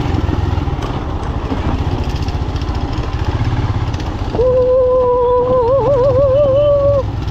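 Royal Enfield Scram 411's single-cylinder engine running at low speed, with a steady, even thud of firing pulses. About four seconds in, a held high tone joins for about three seconds, wavering in pitch partway through.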